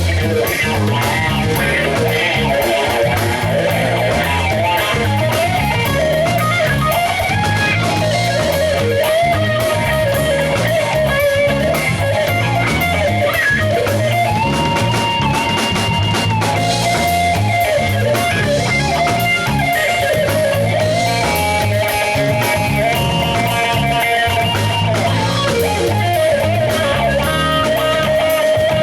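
Live band playing a blues-rock groove: an electric lead guitar solos with bent and held notes over bass guitar and drum kit.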